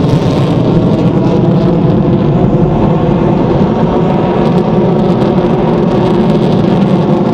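Loud, steady jet-engine noise from a Lockheed Martin F-22 Raptor's two Pratt & Whitney F119 afterburning turbofans as the fighter manoeuvres in flight.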